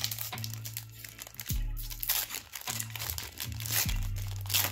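Crinkling and tearing of a hockey card pack's wrapper being ripped open by hand, in several bursts, over background music with a steady bass beat.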